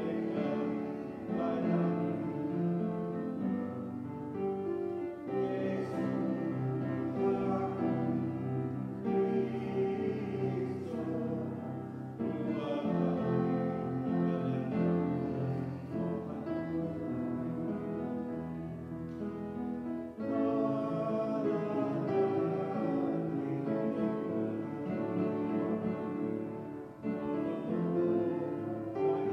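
A church congregation singing a hymn together with instrumental accompaniment, in slow, sustained notes.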